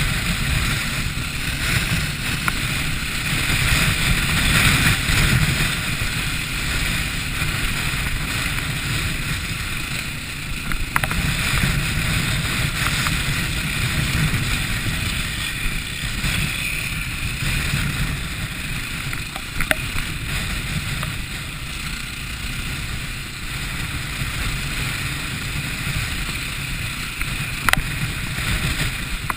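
Wind buffeting the microphone: a steady low rumble with hiss, and a few faint clicks.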